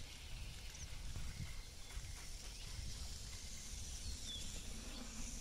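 Open marsh ambience: a steady low rumble on the microphone under a faint hiss, with a few short, faint, high bird chirps that drop in pitch, one near the start, one in the middle and one near the end.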